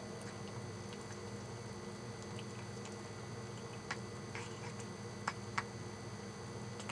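A pet eating: a few faint wet clicks and smacks, a sharp one about four seconds in and two more shortly after, over a steady low hum.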